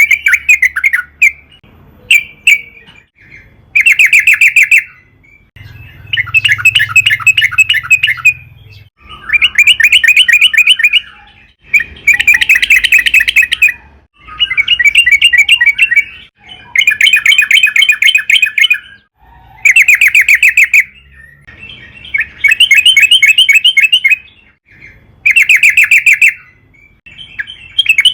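Sooty-headed bulbul singing in a long run of rapid chattering phrases, each one to two seconds long, repeated with short pauses between them.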